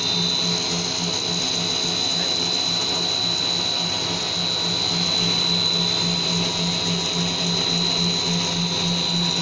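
Snack-food extrusion production machinery running steadily: a constant motor whine with a high steady tone over a low hum that pulses several times a second.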